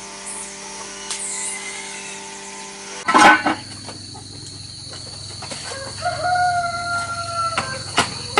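A rooster crows once, a single held, slightly falling call about six seconds in. Before that, a steady hum of several even pitches runs until a loud sudden noise about three seconds in, and a high thin steady tone carries on after it.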